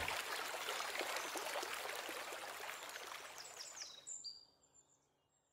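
A crackling hiss fading out steadily, with a few short high falling chirps near the end before it stops about four seconds in.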